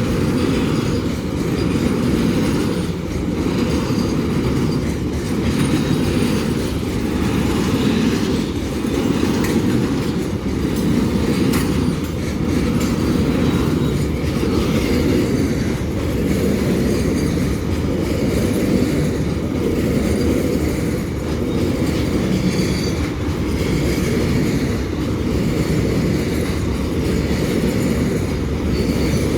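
Wagons of a long container freight train rolling past steadily, the wheels clattering over rail joints with a faint high wheel squeal at times.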